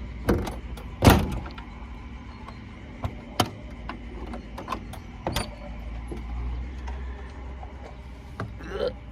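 Vehicle engine idling with a low steady hum, with several sharp knocks and clunks over it, the loudest about a second in.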